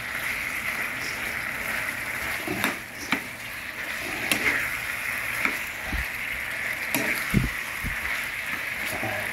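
Pieces of fish in a thick sauce sizzling in a frying pan with a steady hiss, while a metal spoon stirs them and clicks against the pan several times.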